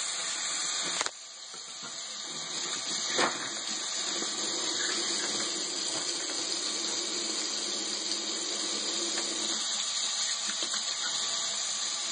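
Tap water running steadily into a sink while hands are washed under it, with a short knock about three seconds in.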